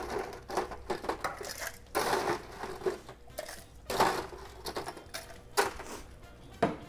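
Ice cubes being scooped and dropped into a stainless-steel Boston shaker tin, clattering in about five separate bursts.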